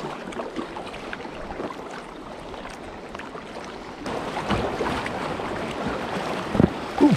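River water rushing and splashing around a small boat moving downstream. The rush grows louder about four seconds in as the boat reaches faster, rougher water.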